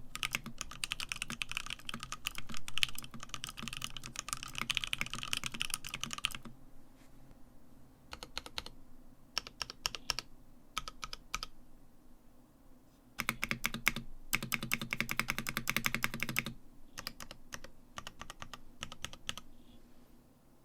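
Typing on a Satisfaction75 mechanical keyboard with lubed, filmed Lavender switches on an FR4 plate and CXA-profile doubleshot PBT/ABS keycaps. Fast continuous typing gives way after about six seconds to scattered single keystrokes. A second burst of fast typing comes about two-thirds of the way through, then a few last scattered presses.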